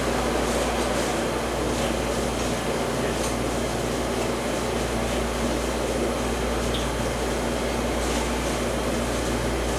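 A steady machine hum with an even rushing noise, like a fan running, and a few faint soft handling sounds.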